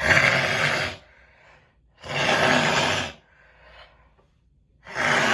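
A person with a congested summer head cold blowing his nose hard into a tissue, three forceful blows of about a second each, a couple of seconds apart.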